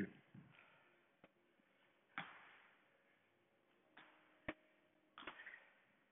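Near silence, broken by about six faint knocks and thuds spaced irregularly, the sharpest about four and a half seconds in.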